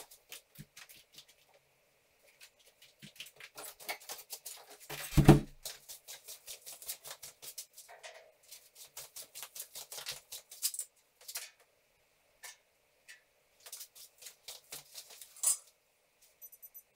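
Irregular clicks, light knocks and clatter of hands and feet working around galvanised steel drywall framing, with one heavy thump about five seconds in. A short run of high electronic beeps near the end.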